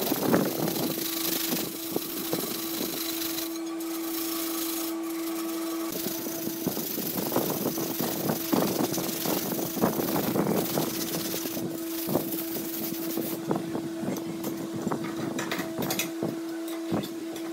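Sandpaper rubbed by hand over the steel edges of an axe head cut from a motorcycle brake disc: irregular short rasping strokes. A steady machine hum runs underneath.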